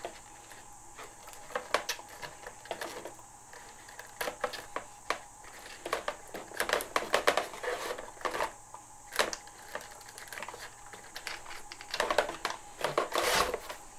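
Light irregular clicking and tapping of servo wires and their small plastic plugs being handled and pushed through a hole in a foam model-plane fuselage, with a longer scraping rustle near the end.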